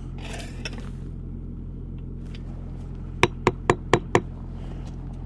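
Five quick, sharp taps on a precast concrete lintel, seating it flush with the Röcka step unit below, over a steady low hum.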